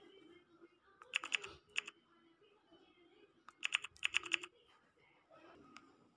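Key-press clicks from a phone's on-screen keyboard as a message is typed: a quick run of about four taps, then after a pause a faster run of about six or seven.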